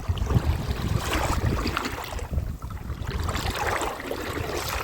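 Wading through a shallow river, water sloshing and splashing around the legs in uneven surges with each stride.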